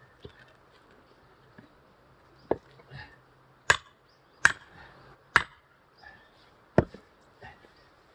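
Axe striking firewood being split by hand: five sharp chops roughly a second apart, starting about two and a half seconds in.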